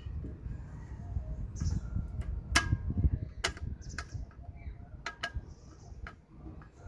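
Metal clicks and clinks from tools and the parts of a Suzuki Jimny's rear drum brake being worked by hand, about half a dozen sharp clicks over a low handling rumble, as a brake spring is wrestled into place.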